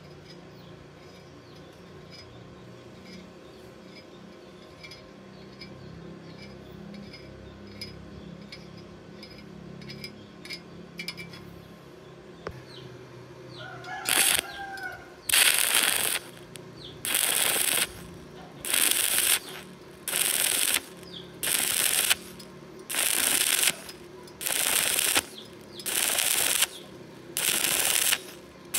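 Stick-welding arc on thin galvanized steel, struck in short bursts: after a fairly quiet stretch with faint ticking, the arc crackles for about a second at a time with short breaks, about nine times in the second half.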